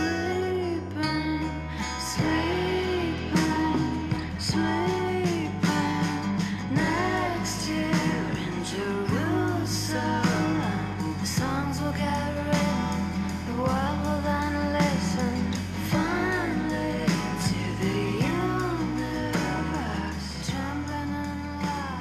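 Acoustic indie song: a voice singing with wavering, held notes over guitar, with a steady bass line underneath.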